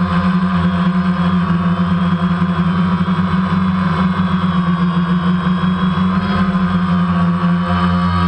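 DJI Phantom quadcopter's electric motors and propellers in flight, heard from the GoPro mounted on the drone itself: a loud, steady buzzing drone with a strong low hum.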